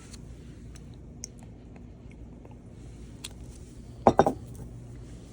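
Kitchen utensils and dishes clinking while food is prepared: scattered small clicks, then three quick, sharper knocks of utensil on dish about four seconds in.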